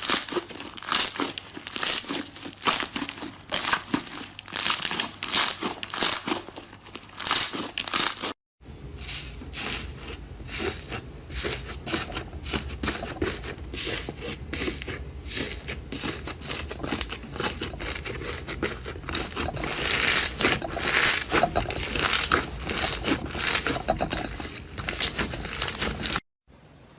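Continuous crinkling and crackling, a dense run of small snaps, loudest a little past the middle, broken twice by brief dropouts at edits.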